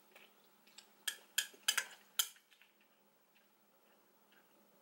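Chopsticks clicking against a bowl while eating noodles: a quick run of about five sharp clicks about a second in, then quiet.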